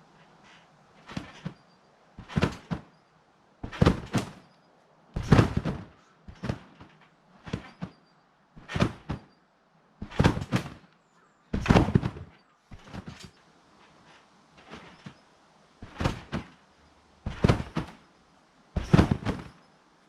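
A person bouncing on a trampoline: the mat and springs thump with each landing, about one every one and a half seconds, some landings much heavier than others.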